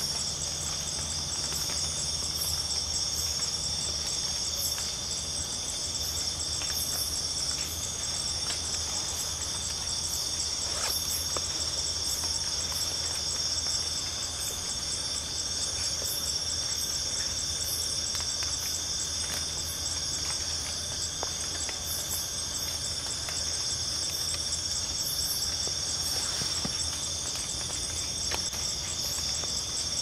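A steady night chorus of jungle insects: several high-pitched trills layered together and holding constant, with a sharper, higher chirp breaking in every second or two.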